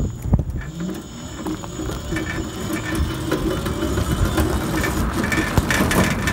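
Electric quad cycle's motor whining as it pulls away, its pitch rising over the first second and then holding steady under full throttle, with rattles and knocks from the frame running over rough pavement.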